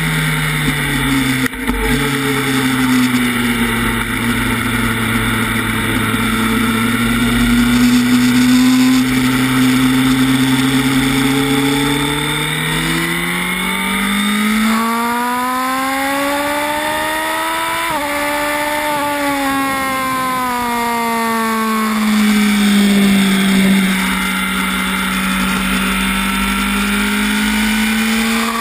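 Honda 1000 cc inline-four sport bike engine heard from the rider's seat at racing speed, with constant wind rush. Its note holds low, climbs steadily under acceleration, breaks off sharply about two-thirds in and winds down, then rises again near the end.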